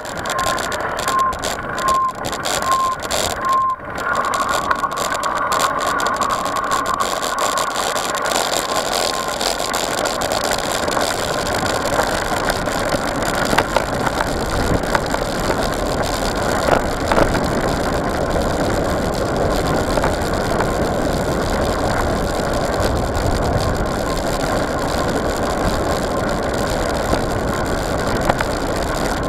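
Wind rushing over a bike-mounted camera and knobby tyres rolling over a sandy dirt trail as a mountain bike is ridden, with more low rumble once the trail opens onto a wide dirt road. For the first few seconds a short high beep repeats about every three-quarters of a second, then stops.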